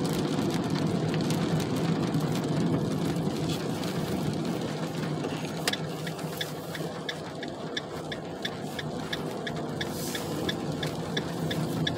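Steady engine and road hum heard inside a moving car. About halfway through, a regular ticking of about three clicks a second joins it, the car's turn-signal indicator.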